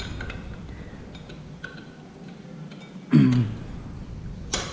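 Faint small metallic clinks and taps as a motorcycle's rear brake caliper pad pins and pads are handled, with a short vocal sound about three seconds in and a sharp click near the end.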